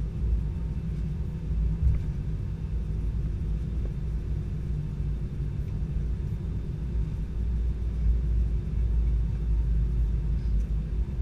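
Steady low rumble inside the cabin of an Airbus A320-214 taxiing: the CFM56 engines at idle and the wheels rolling over the taxiway, with a brief bump about two seconds in.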